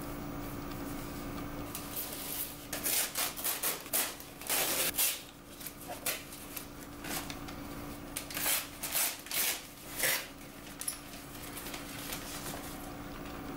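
Stiff kraft paper wrapping crinkling and rustling as it is pulled off a potted rose, in a quick run of crackles from about three seconds in until near the end. A faint steady hum underlies it.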